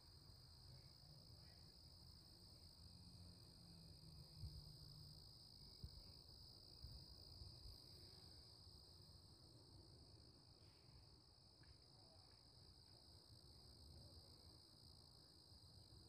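Near silence: a faint, steady, high-pitched trill of crickets over a low wind rumble, with a few soft thumps in the middle.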